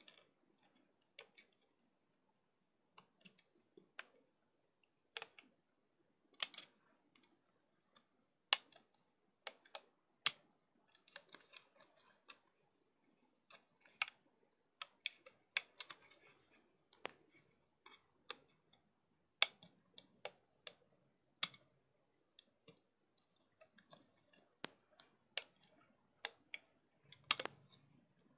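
Plastic band hook clicking against the pegs of a clear plastic rubber-band loom as rubber bands are pulled up and looped over them, in irregular sharp clicks about one or two a second with faint rustling between.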